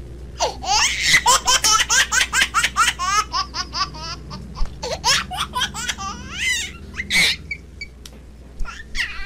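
A young child laughing in quick, high-pitched bursts for the first few seconds, then scattered squeals and babbling.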